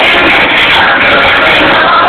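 Loud music played through a home-assembled sound system of a subwoofer, five ordinary speakers and two amplifiers.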